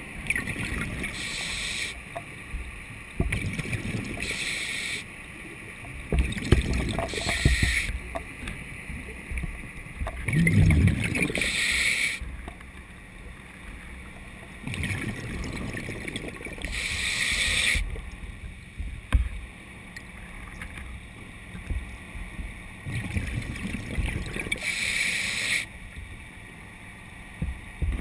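Underwater sound of a diver breathing through a regulator: a hiss with each inhalation every few seconds, and bubbling rumbles as exhaled air escapes, over the low rumble of the water.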